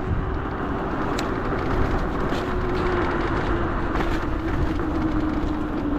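TeeWing Mars XTR electric scooter riding along a snowy, icy trail: a steady motor whine that sinks slightly in pitch near the end, over a continuous rumble of tyres and wind.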